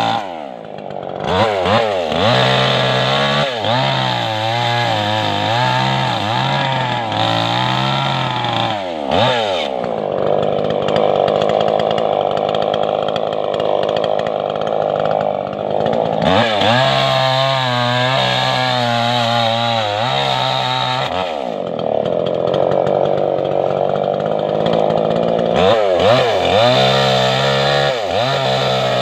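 Stihl chainsaw cutting wood: the engine runs at high revs, its pitch wavering under load, and drops sharply off the throttle several times before revving back up.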